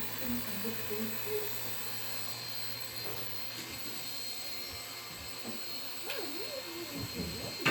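Small electric motor of a micro RC helicopter running steadily with a high whine over a low hum; a sharp click right at the end.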